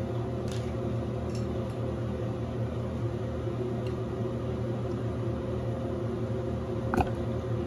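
Bathroom exhaust fan running with a steady hum. A single sharp click comes near the end.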